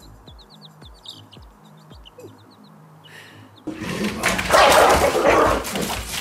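A baby chick peeping in quick short chirps over soft background music. About three and a half seconds in, a sudden loud burst of a dog barking in a small room takes over and runs on.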